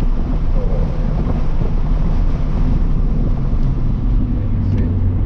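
2023 Toyota GR86's 2.4-litre flat-four engine running hard at track speed through the GR exhaust, a steady drone with tyre and wind noise, its low note growing stronger near the end.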